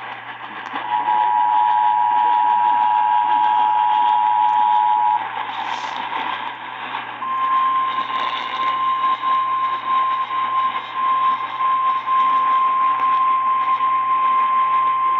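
Emergency Alert System attention signal received over the radio: a loud steady two-tone alarm held for about four seconds under static. After a short break it is followed by the single slightly higher-pitched NOAA Weather Radio warning tone, held for about nine seconds with brief dropouts. Together they herald a severe thunderstorm warning.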